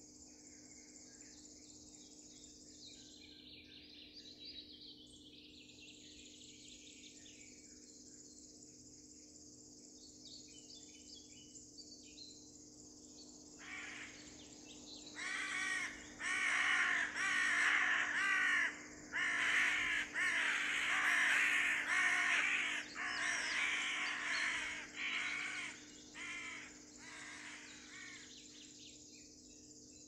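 Northern hawk-owl giving a series of harsh, screeching calls at its nest, a dozen or so calls each up to about a second long, starting about halfway in and fading out near the end. A steady high, insect-like hiss runs underneath.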